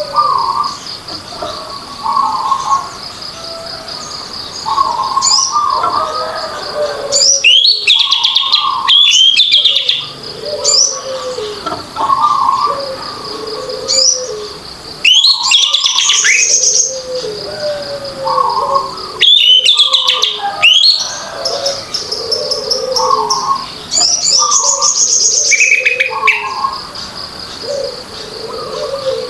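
Orange-headed thrush singing in full, open song: loud varied phrases of fast sweeping and trilled notes, repeating every few seconds, over a steady thin high whine.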